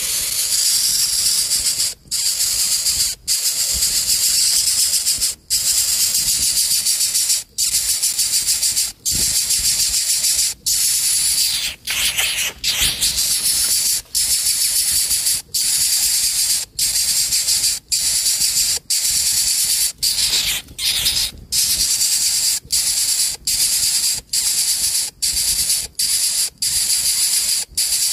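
Coucal nestling hissing loudly with its beak wide open, long hisses broken by short pauses every second or two: food-begging as a parent brings a gecko to the nest.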